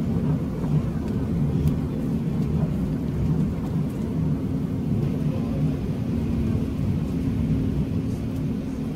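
Cabin noise inside an Airbus A380 climbing just after takeoff: a steady low rumble of engines and airflow.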